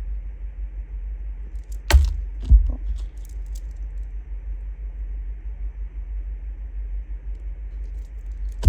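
A cluster of metal and glass beads clinks twice as it is handled and set down on a craft table about two seconds in, with a few lighter ticks after, over a steady low hum.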